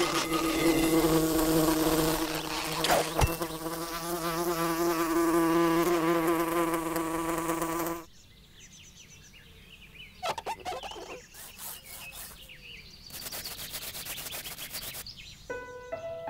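A fly buzzing loudly under an upturned drinking glass, its pitch wavering. The buzz cuts off suddenly about halfway through, leaving only faint scattered ticks and rustles.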